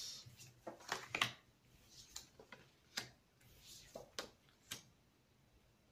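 Light, irregular taps and clicks of oracle cards being turned over and laid down on a card board. About nine small, faint knocks come in the first five seconds.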